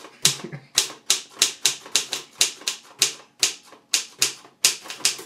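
Typewriter being typed on: hard, separate key strikes at an uneven pace of about four a second.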